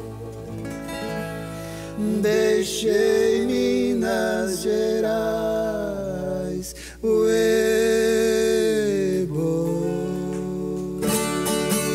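A sertanejo vocal duo sings long held notes in two-part harmony over acoustic guitar. There is a short break in the middle, and the strumming picks up again near the end.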